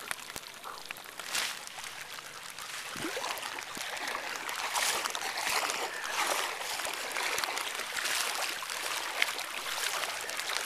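Legs wading knee-deep through floodwater, the water swishing and splashing in surges about every second or so with each stride.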